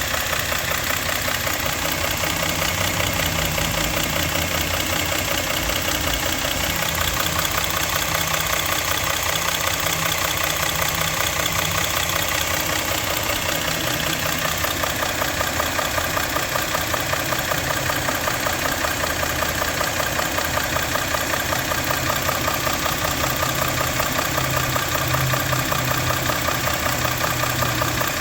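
Engine idling with a steady, fast, rhythmic knock.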